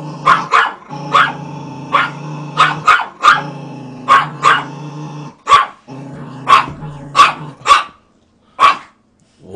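Dogs barking sharply over and over as they fight, often in quick runs of two or three barks.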